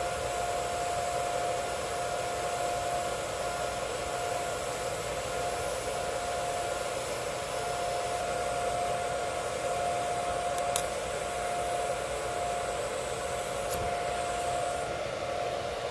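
TIG welding arc running steadily up a vertical (3G) coupon at about 140 amps, a constant hiss with a steady tone under it, during a cap pass.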